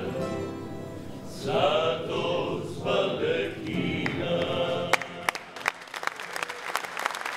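Male vocal group singing in close harmony, with acoustic guitar accompaniment, through the closing phrase of a Dalmatian klapa-style song. About five seconds in the singing ends and the audience breaks into applause.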